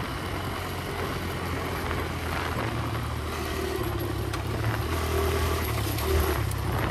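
Kawasaki KLX140 dirt bike's single-cylinder four-stroke engine running steadily while cruising, its pitch shifting slightly with the throttle and getting a little louder near the end.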